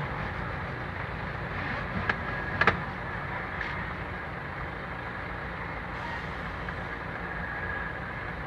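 Steady background hum with a few short, sharp clicks; the loudest click comes a little under three seconds in.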